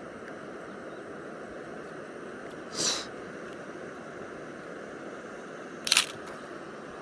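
Steady rush of flowing water, broken by two short sharp noises about three seconds apart, the second one sharper and louder.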